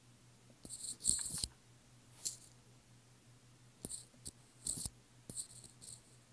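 A stylus scratching on a tablet screen in a string of short, faint strokes, the longest and loudest about a second in.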